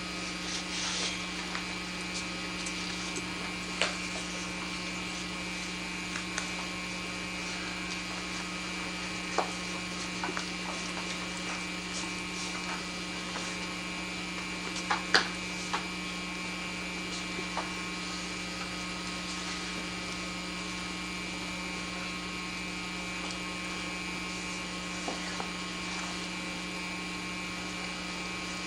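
Steady electrical hum with hiss, the noise floor of an old camcorder tape recording, broken by a few faint short clicks, the loudest about fifteen seconds in.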